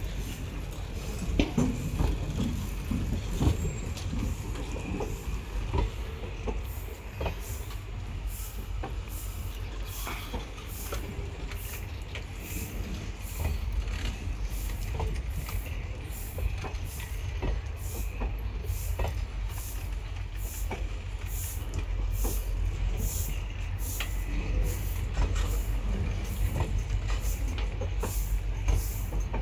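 ICF passenger coaches rolling slowly along the rails: a steady low rumble with scattered sharp clicks and knocks from the wheels on the track.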